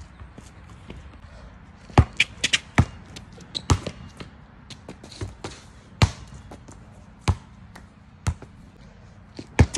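Basketball bouncing on an asphalt driveway: about ten sharp bounces at uneven spacing, the loudest about two and six seconds in.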